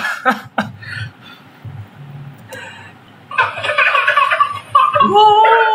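A man's brief giggling, then about three seconds in, a burst of excited high-pitched baby laughter and squeals, ending in a long held squeal.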